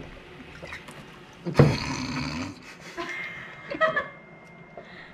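A man drinking from bottles one after another, swallowing and gulping, with a sudden loud sound about a second and a half in and a few short sharp knocks and clinks later on.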